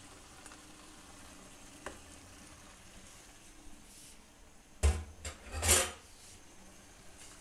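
Spatula stirring vegetables in a frying pan over a faint sizzle, with two louder stirring strokes against the pan about five seconds in, under a second apart.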